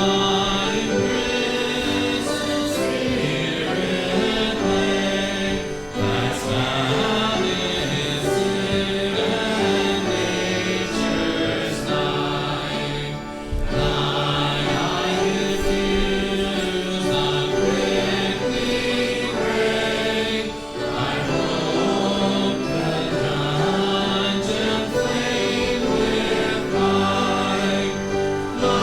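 A choir singing sacred music, held notes in phrases with short breaks about every seven seconds.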